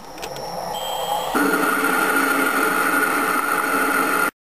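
Small metal lathe running, its spindle and chuck spinning up and then turning steadily with a whine, while the taper is being turned on a steel bar. The sound grows, jumps louder about a second and a half in, and cuts off abruptly just before the end.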